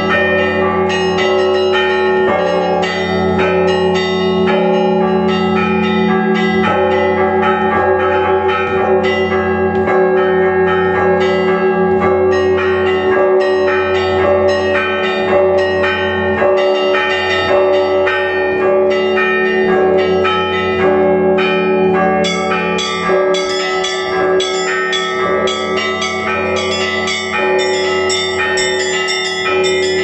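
Orthodox church bells of Uspenski Cathedral ringing in a continuous peal: many bells struck in quick, overlapping strokes over the steady hum of the large bells. Brighter, higher strokes come forward in the last third.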